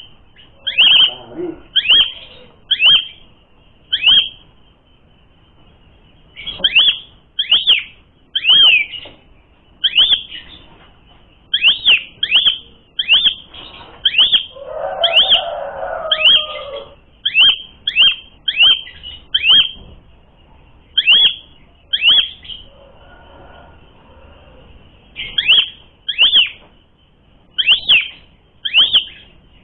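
Asian pied starling (jalak suren) calling: a loud, sharp, downward-slurred note repeated about once a second in runs with short pauses. A lower, rougher sound lasts about two seconds midway.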